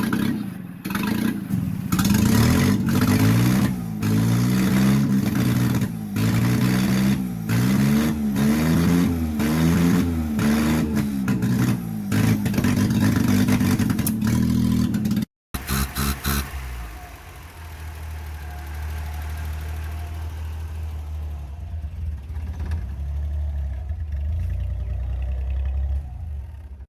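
Car engine revved again and again in quick blips, its pitch rising and falling about once a second. After a cut about halfway through, a lower, steady engine drone follows.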